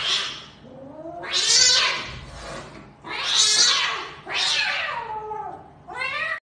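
A cat yowling and screeching in about five loud cries, each with a wavering, bending pitch. These are the defensive screams of a cornered cat warning off another cat. The sound cuts off abruptly near the end.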